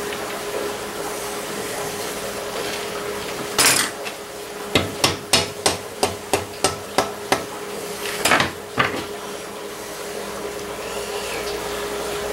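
A spool valve being tapped up into its bore in a Farmall Touch-Control valve body. There is a knock, then a quick run of about ten light taps, about three a second, then two more knocks.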